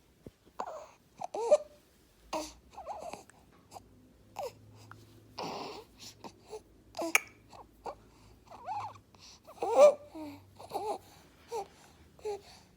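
Infant with laryngomalacia making a string of short, squeaky, fussy vocal sounds mixed with noisy breaths, the loudest about ten seconds in; noisy breathing of this kind is the sign of the floppy larynx.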